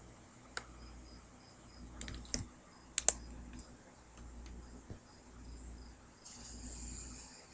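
A few sharp clicks, the loudest pair about three seconds in, and a short high rustle near the end, over a faint high-pitched chirping that repeats steadily.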